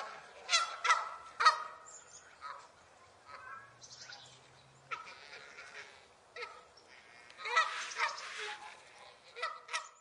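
Domestic geese honking: a few loud honks in the first couple of seconds, softer scattered calls through the middle, then a quick run of honks a little past halfway and two more near the end.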